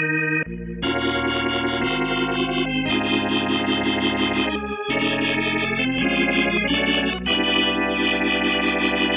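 Sampled vintage organ from the Native Instruments Scarbee Vintage Organs library, played as held chords over a bass line that change every second or two.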